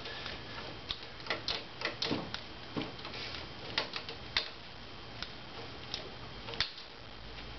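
Light clicks and taps at irregular intervals, one or two a second, from hand tools being handled.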